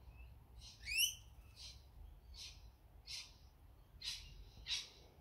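Small birds calling: one rising whistled call about a second in, then a run of short, high chirps roughly every half second to a second.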